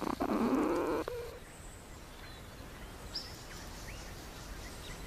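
Outdoor ambience with a few faint, short bird chirps. A louder noise fills roughly the first second and then drops away.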